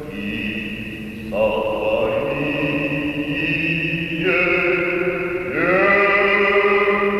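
Orthodox funeral chant sung by a choir: long held chords that move to a new pitch every second or few seconds.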